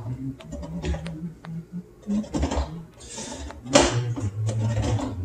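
Manual hand-crank can opener being turned around the rim of a metal can as it cuts the lid: irregular clicks at first, then rough grating scrapes, with a louder scrape and a low buzzing grind about four seconds in.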